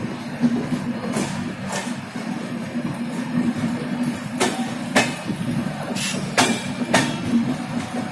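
Indian Railways express train running through at speed: a steady rumble of steel wheels on the rails, broken by sharp clacks that often come in pairs about half a second apart as wheelsets cross rail joints.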